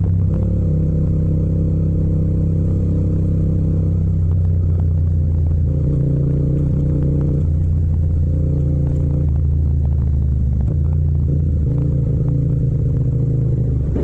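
Yamaha MT-07's parallel-twin engine running under the rider while the bike slows down and shifts down a gear, its note shifting in pitch several times as the speed drops.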